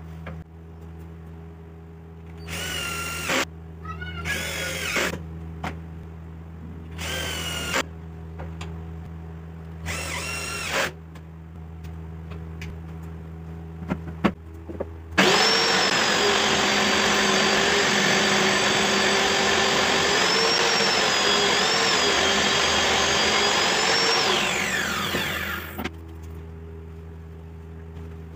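A power drill runs in four short bursts of about a second each, its pitch rising and falling as it drives screws. Then a table saw runs loud and steady for about ten seconds and spins down after it is switched off.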